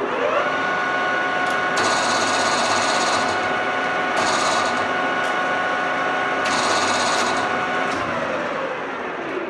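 1985 Soviet 16K20 screw-cutting lathe running: the spindle drive comes up to speed with a rising whine, then runs with a steady gear whine and hiss, and winds down with a falling pitch near the end. Three times, extra hissing rises over the machine sound for about a second.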